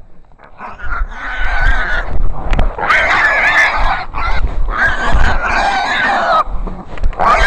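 Sow squealing loudly in four long, wavering squeals, each a second or more, the last one starting near the end. These are the distress squeals of a hog caught by hunting dogs.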